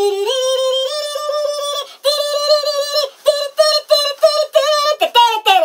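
A high-pitched singing voice: long held notes that step up in pitch, then quick short sung syllables from about two seconds in.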